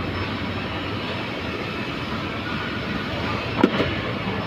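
Steady rumble and hiss of running machinery, with two sharp clicks about three and a half seconds in.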